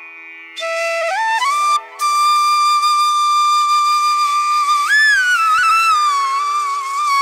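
Background music: a solo melody line that comes in about half a second in, slides upward and then holds one long note, with a brief rise near the five-second mark, over a faint steady drone.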